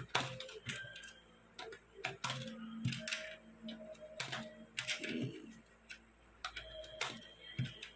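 Coins clinking and a plastic coin jar being handled: an irregular run of sharp clicks and taps. Soft background music plays underneath.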